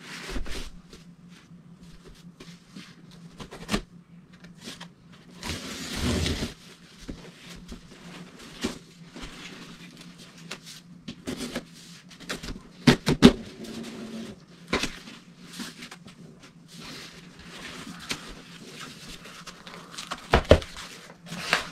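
A cardboard shipping box being handled and opened by hand: a knife slitting packing tape, tape peeling, and cardboard flaps scraping and knocking, heard as irregular rustles and sharp clicks. A steady low hum runs underneath.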